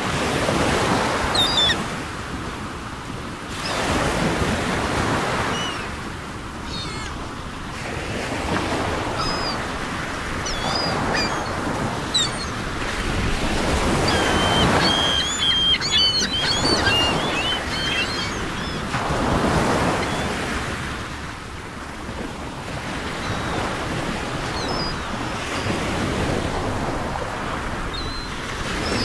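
Ocean waves washing onto a shore, the surf swelling and fading every four to five seconds, with short high bird calls now and then, most around the middle.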